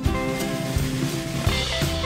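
Instrumental background music with a steady drum beat and plucked strings.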